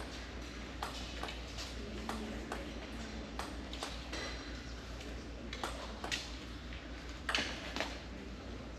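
Table tennis balls making sharp, light clicks as they bounce, about ten of them at irregular intervals, over a low steady hum of the hall.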